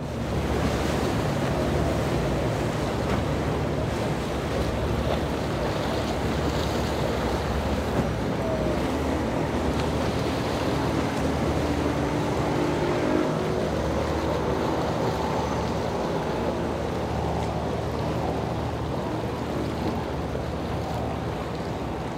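Motorboat engines running with a steady drone under the rush of waves and surf, and wind buffeting the microphone.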